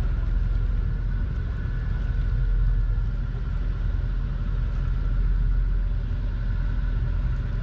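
Boat engine running steadily: a constant low rumble with a faint steady whine above it.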